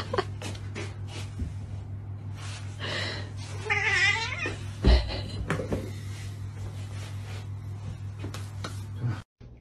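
A domestic cat meows, one drawn-out, wavering call about four seconds in, amid small clicks and knocks of movement on the floor and a low thump just after the call.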